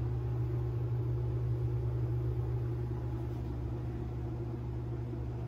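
Steady low hum with a few fainter overtones, unchanging throughout.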